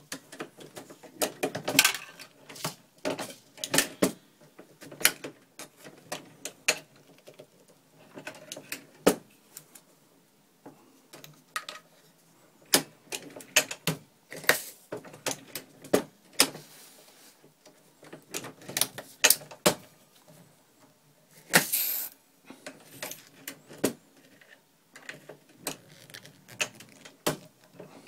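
Irregular clicks and clacks of a MEC Junior Mk 5 single-stage shotshell press being worked by hand: the handle stroking and 12-gauge shells being set into and taken out of the stations. There is a brief, louder rattle about three-quarters of the way through.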